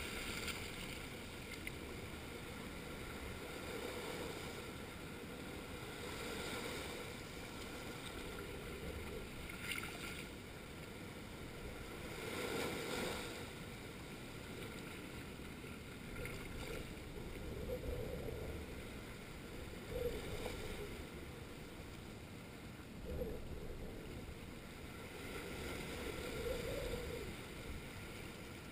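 Small sea waves washing in over a rocky shore and draining back, the surf rising and falling every few seconds.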